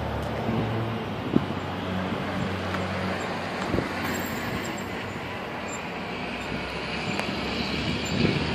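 Steady street traffic noise with the low hum of passing vehicles, and a couple of light knocks.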